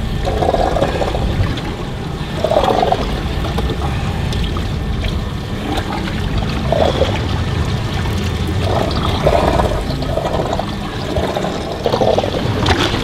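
Seawater sloshing and splashing against a boat's hull in irregular swells, over a steady low rumble.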